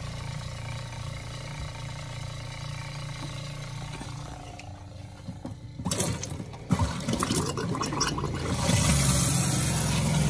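Shurflo 12-volt water pump running with a steady low hum as it draws water from the tank through a rerouted low pickup. About six seconds in there is a brief clatter, then the faucet runs water into a stainless steel sink, and the pump's hum grows louder near the end.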